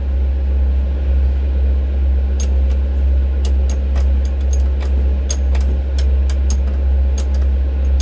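Daedong D500 tractor's diesel engine running steadily, with scattered light clicks over the hum.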